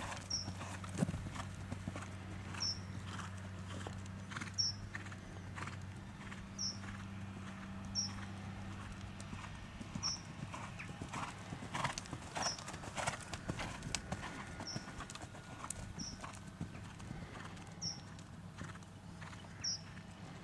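Hoofbeats of a ridden horse trotting on the soft surface of an outdoor dressage arena: dull, irregular thuds.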